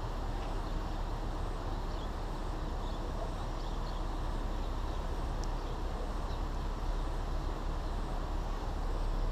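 Steady low outdoor rumble with no distinct events, and a few faint, short high chirps scattered through it.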